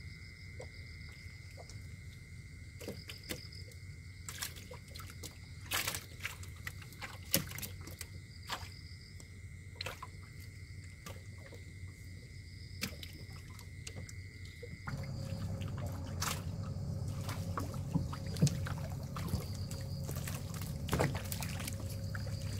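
Water sloshing and splashing in scattered short strokes as a hand net is worked through the water for fish. A steady high whine runs alongside until about two-thirds of the way through, then stops as a low hum sets in.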